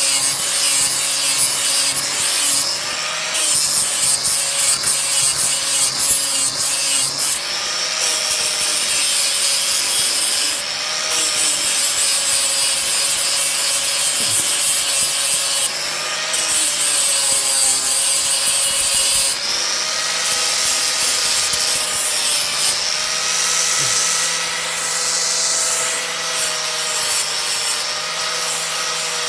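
Wood being shaped by a tool into a spoon: a continuous rasping, rubbing sound over a steady whine that dips and wavers from time to time.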